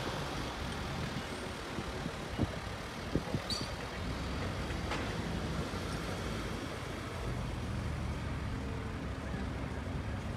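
An engine running steadily, a low even hum, with a few short clicks and knocks between about two and five seconds in.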